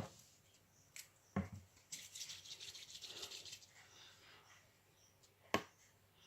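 Small handling noises: a few light knocks and a stretch of scratchy rubbing, with a sharper knock near the end.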